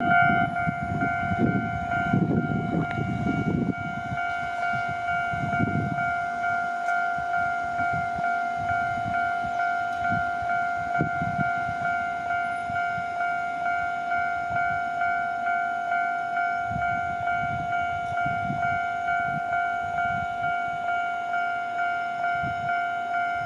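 Japanese level-crossing warning alarm ringing its repeated electronic bell tone, about two rings a second, with low rumbling in the first few seconds.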